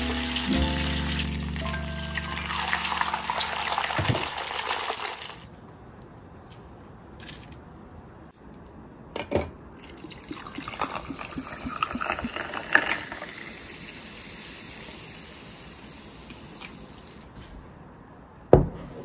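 Tempura frying in a pot of hot oil: a steady crackling sizzle that cuts off about five seconds in. Later a drink is poured into a glass of ice, with ice clinking, and near the end a ceramic bowl is set down on a wooden table with one knock.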